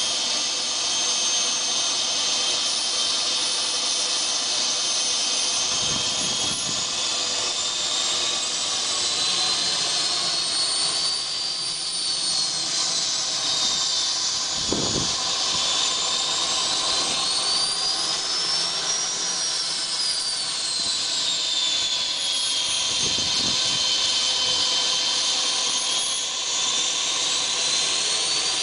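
Small turbojet engine of a radio-controlled BAe Hawk model jet running: a steady rushing roar with a high whine that slowly rises and falls in pitch several times.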